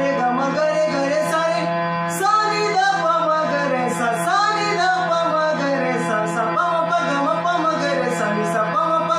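Music from a Marathi devotional song: a melody sliding up and down over a steady drone, with light high taps keeping time.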